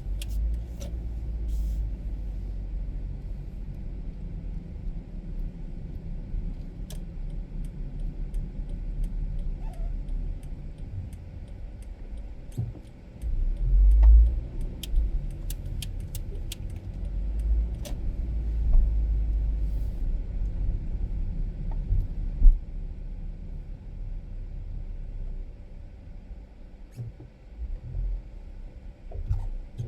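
A car driving slowly on a city street: a low, steady rumble of engine and tyres with several louder swells, and scattered sharp clicks and knocks.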